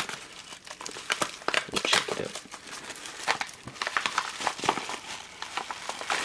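Yellow padded bubble mailer crinkling and crackling in irregular bursts as its opened top is pulled apart and a hand reaches inside.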